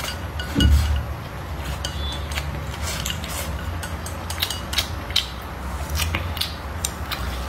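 Wooden chopsticks clicking and scraping against a ceramic bowl as food is shoveled into the mouth, with a low thump about half a second in.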